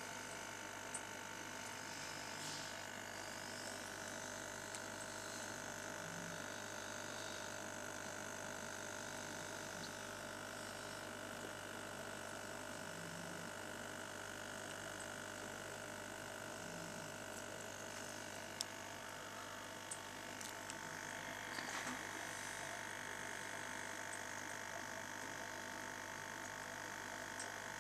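Steady electrical hum made of several constant tones, with a few faint clicks and ticks scattered through it, the sharpest about two-thirds of the way in.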